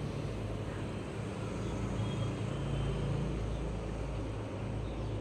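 Steady low background rumble with a hum, with no distinct events.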